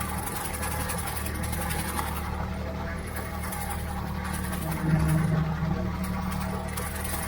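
Ford 3600 tractor engine running steadily while pulling a Brush King rotary mower (bush hog) through a grass field, briefly a little louder about five seconds in.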